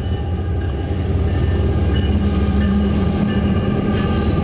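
CSX freight train with diesel locomotives rumbling across a steel truss railroad bridge, the rumble growing louder about a second in.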